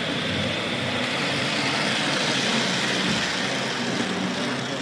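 Model train running on the layout: a steady, engine-like running sound.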